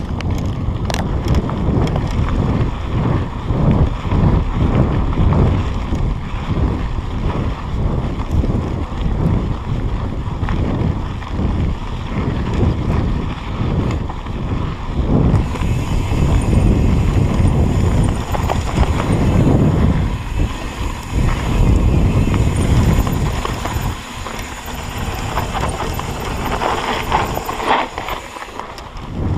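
Heavy wind buffeting the microphone while moving along a dirt trail, with a steady run of regular knocks and rattles about twice a second, typical of a bicycle jolting over rough ground.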